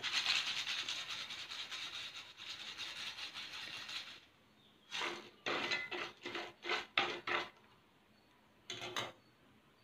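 Hot oil sizzling and crackling around macaroni in a deep-fry pan, dying away and stopping about four seconds in. After that come a handful of short clinks and scrapes as the wire spider skimmer knocks against the metal pan.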